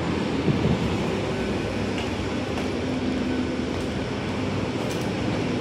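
Steady low rumbling background noise, with a few faint ticks.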